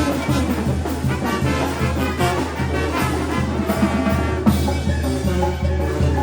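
Mexican banda brass band playing: trumpets and trombones carry the melody over a steady low beat.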